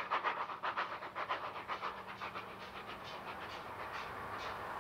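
Steam locomotive 3265 working along the line, its exhaust chuffing rapidly at about five beats a second. The chuffs grow fainter after about two seconds and blur into a steady rush.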